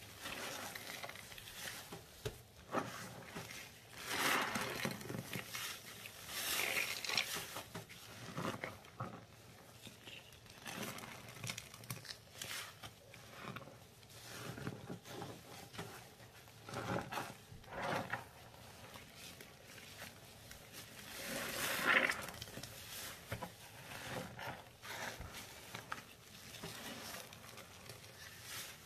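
Gloved hands squishing and smearing wet, foamy paste, with bubbles crackling. The squishes come in irregular pushes, the loudest a few seconds in and again about two-thirds of the way through.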